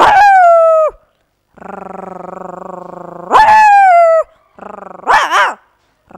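A woman imitating a young puppy's whining and yelping with her voice. Twice a low buzzing drone jumps to a high whine that slides down. Near the end come shorter yelps that waver up and down in pitch.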